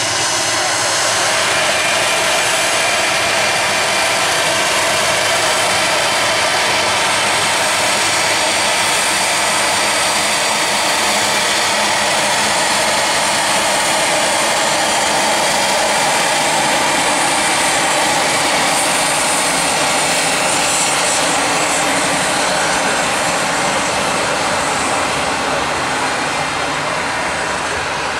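Gulfstream II business jet's two Rolls-Royce Spey turbofans running steadily at taxi power, a loud jet noise with a high whine over it, easing off a little near the end as the jet turns away onto the runway.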